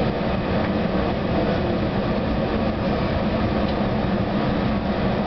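Amtrak San Joaquin passenger train arriving at the station, heard from inside the passenger car: a steady rolling noise from the wheels and running gear, with an even low hum.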